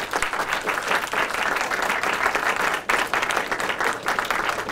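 Audience applauding: many hands clapping together in a dense, steady patter, with a brief dip about three seconds in.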